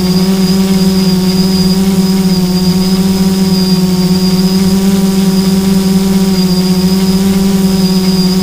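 Motor and propeller of an FPV aircraft, heard through its onboard camera, running at a steady throttle. It gives one constant low hum with overtones above it and a thin high whistle, with no change in pitch.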